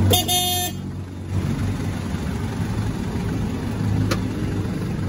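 Mazda Titan's WL diesel engine idling steadily, with a short horn toot of about half a second right at the start and a single sharp click about four seconds in.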